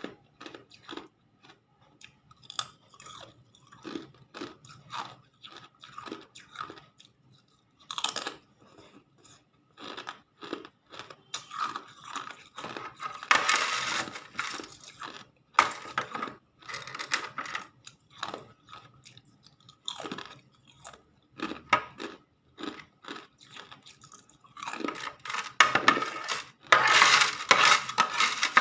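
Close-up crunching and chewing of hard ice: bursts of crackling bites and grinding, growing denser and louder in two longer spells, the second near the end.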